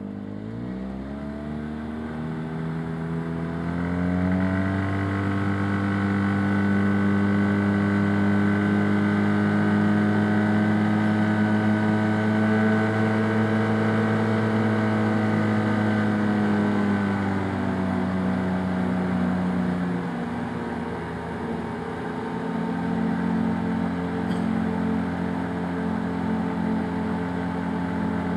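Arctic Cat Wildcat Trail UTV engine pulling away, its pitch rising over the first few seconds, then running steadily at cruising speed; it eases off a little about two-thirds of the way through and settles to a slightly lower steady note.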